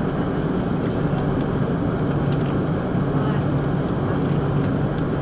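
Cabin noise inside an Airbus A330-300 taxiing: a steady drone and rumble from the engines at low taxi power, with a few faint clicks and rattles.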